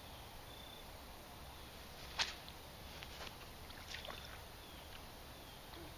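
Quiet pondside outdoor ambience: a steady low rumble with a few faint, short high chirps. A sharp click about two seconds in and a couple of softer clicks a second or two later are the loudest sounds.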